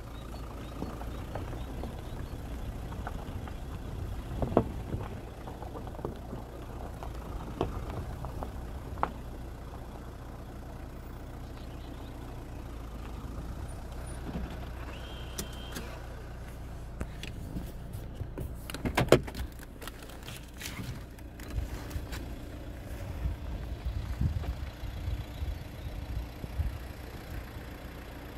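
Low wind rumble on the microphone, with scattered clicks and knocks that come thickest about two-thirds of the way through, and a brief high tone about halfway.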